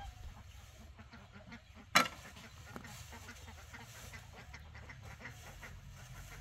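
Poultry calling faintly in short repeated notes, with one sharp knock about two seconds in as the loudest sound.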